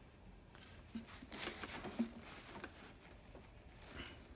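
Faint rustling with a few small clicks as hands handle a tulle bridal veil and a synthetic wig on a life-size animatronic prop, mostly in the middle of the stretch.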